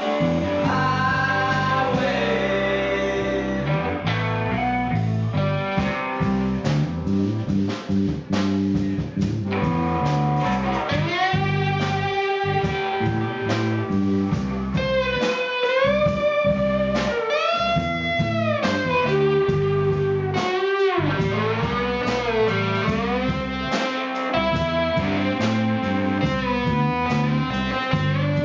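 Rock band playing live: electric guitar, bass guitar and drum kit in an instrumental passage. About a third of the way in, a lead line of long held notes begins, bending up and down in pitch. It carries on for about ten seconds.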